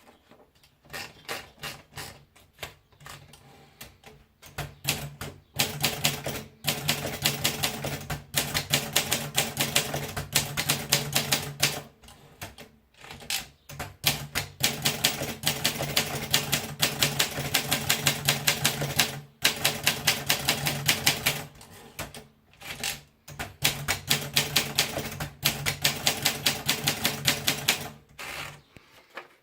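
Olympia Monica manual portable typewriter being typed on: rapid runs of key strikes hitting the platen, broken by short pauses.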